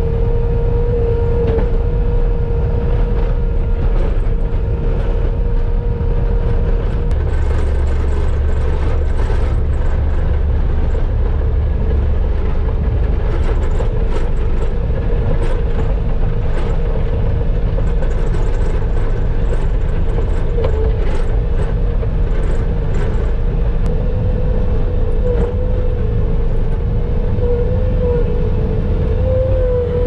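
Skid steer engine running steadily while pushing a snowplow blade, heard from inside the cab, with a steady whine over the low rumble. Scattered clicks and knocks come through in the middle stretch.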